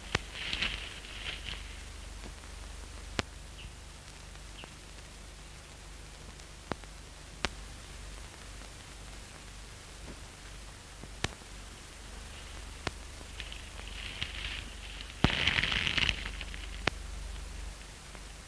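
Hiss and crackle of a worn 1930s optical film soundtrack, with scattered sharp clicks and a louder burst of crackle near the end.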